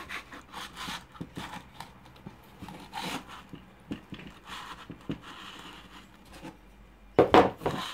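Starter cord being threaded out through the guide hole of a lawn-tiller recoil starter housing and drawn through by hand: faint rubbing and small clicks of cord and fingers on the metal housing, with a louder brief scrape near the end.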